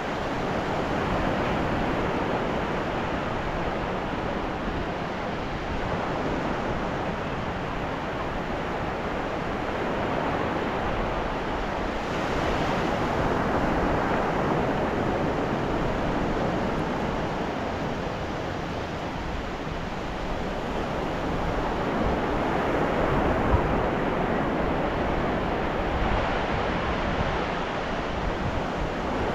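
Ocean surf on a beach: a steady rush of waves that swells and eases every several seconds.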